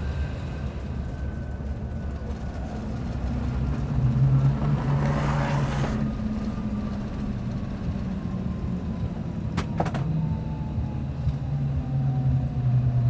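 Cabin noise of a CRJ900 regional jet rolling along the runway after landing: a steady low rumble, with the whine of its rear-mounted jet engines slowly falling in pitch. A brief swell of hiss comes about four seconds in, and two sharp clicks about ten seconds in.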